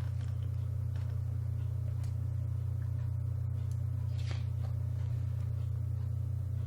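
Steady low hum that holds at an even level throughout, with a faint brief rustle about four seconds in.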